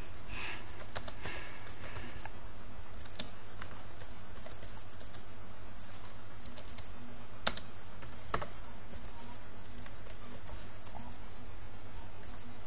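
Computer keyboard typing: scattered, irregular keystroke clicks, one louder click about seven and a half seconds in, over a steady low hum.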